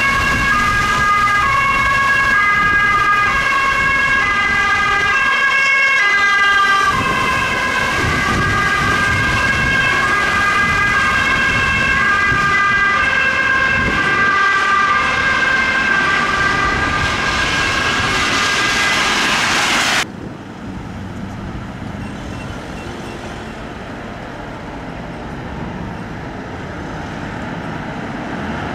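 Ambulance siren sounding as the ambulance drives past, a tone stepping back and forth between two pitches over a steady higher note, with road noise swelling as it comes near. The siren cuts off abruptly about two-thirds of the way in, leaving quieter engine and traffic noise.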